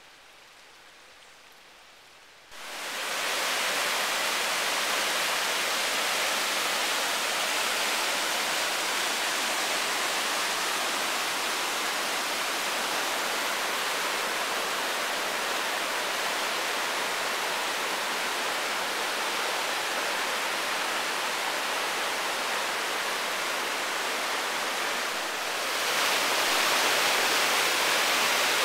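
River rapids rushing through a narrow rock channel: a steady, loud rush of whitewater that comes in abruptly about two and a half seconds in and grows a little louder near the end. Before it there is only a much quieter hiss.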